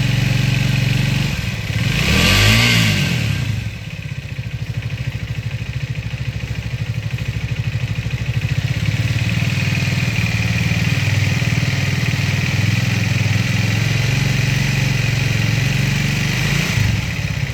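Triumph Speed 400's single-cylinder engine idling with a fast, even ticking pulse, blipped once about two seconds in, rising and falling in pitch. The owner suspects the valve shims or the timing chain. The service centre calls it the engine's normal noise.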